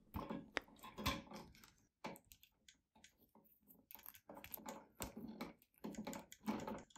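Faint, scattered clicks and scraping of hand-held wiring work: a wire stripper working a short hot wire, then a plastic wire nut being twisted onto the bare copper ends. The clicks are sparse at first, pause, then come in a quicker run toward the end.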